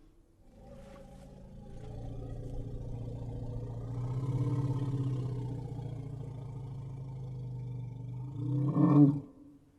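Elephant giving a long, low rumbling call that swells and fades. Near the end comes a short, louder call that rises and falls in pitch.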